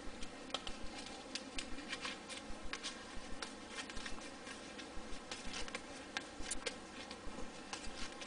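A paper banknote crinkling as it is unfolded and smoothed between the fingers: a string of small, irregular crackles over a steady hiss.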